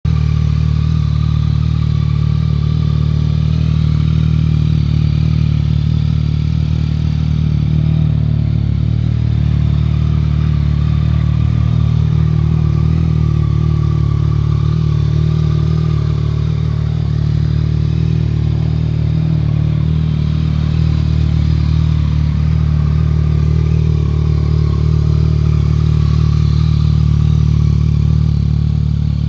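2015 Yamaha MT-09's inline-three engine idling steadily through a full Akrapovic exhaust system.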